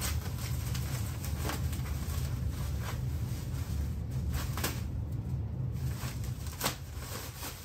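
Plastic wrapping and packing foam crinkling and rustling as a part is unwrapped by hand, with a few sharp crackles, over a steady low hum.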